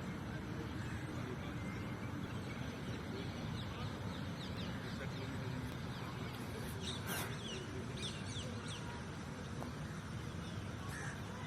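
Outdoor bird ambience: many short, high chirps from several birds over a steady low background noise, with one brief louder sound about seven seconds in.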